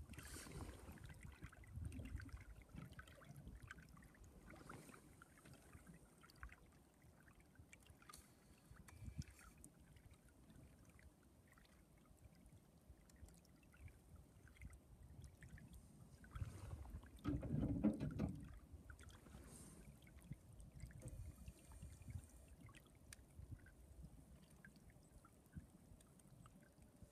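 Small waves lapping and trickling faintly against the hull of a small boat, with scattered little splashes and one brief louder rush about two-thirds of the way through.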